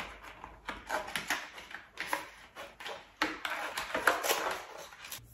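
Cosmetics packaging being handled and opened by hand: an irregular run of rustles and sharp clicks, with a few short squeaks.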